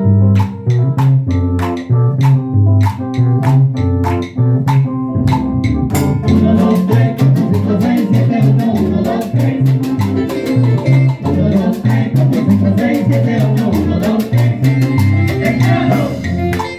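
A dance band playing Latin tropical dance music with a steady beat of drums and bass; the arrangement fills out and grows denser about six seconds in.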